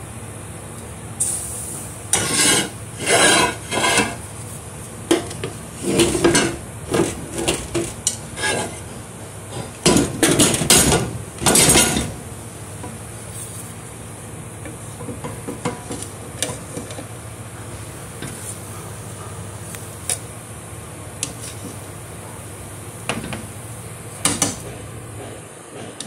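Metal utensil clattering and scraping against a cooking pot in bursts during the first half, then a few lighter clinks, over a steady low hum.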